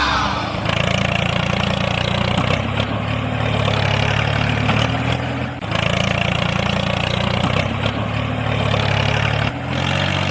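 Tractor engine running steadily, with a brief break about halfway through and a shift in pitch near the end.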